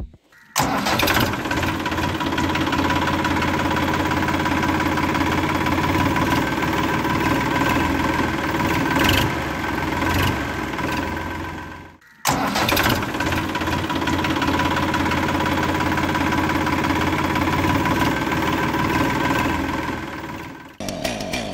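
An engine running steadily with a low pulsing rumble, in two long stretches: it stops abruptly about twelve seconds in, starts again a moment later, and cuts off near the end.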